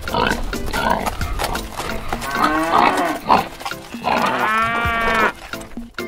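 Two long farm-animal calls, the second about four seconds in and the longer of the two, over background music.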